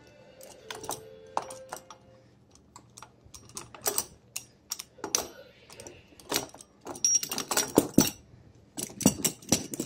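Irregular metal clicks and clinks of a steel gear puller's arms and hooks being handled and fitted onto a wheelchair wheel's rim. The clicks are sparse at first and come thick and fast in the second half.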